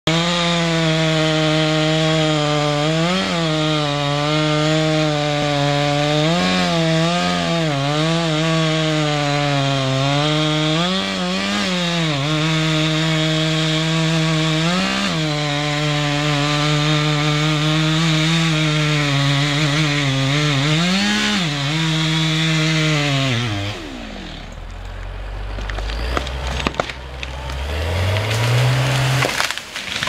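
Gas chainsaw running at full throttle, cutting through the trunk of a large tree, its pitch dipping again and again as the chain loads in the cut. About 23 seconds in the saw winds down, then cracking follows and the felled tree crashes to the ground near the end.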